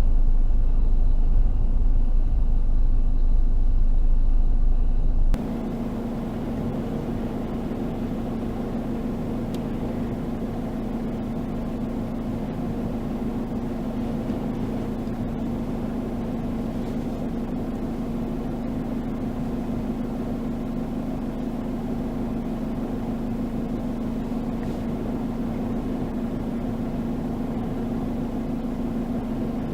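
Strong gusting wind rumbling heavily on the microphone; about five seconds in it cuts abruptly to a steadier sound, a constant low hum under an even hiss of wind.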